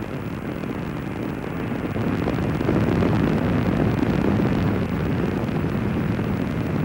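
Rocket exhaust noise of Space Shuttle Columbia climbing on its solid rocket boosters and main engines: a dense, low rumble that grows louder about two seconds in and then holds steady.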